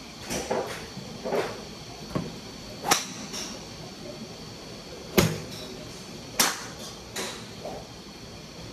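Golf clubs striking balls off driving-range mats: several sharp cracks, the loudest and fullest about five seconds in from a driver.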